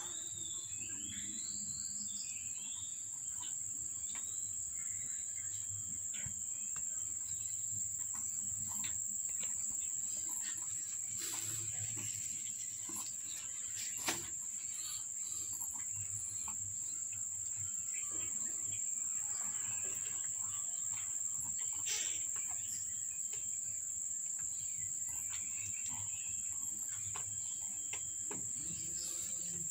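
Insects trilling in one steady, unbroken high-pitched drone, the loudest sound here. A single sharp knock comes about fourteen seconds in.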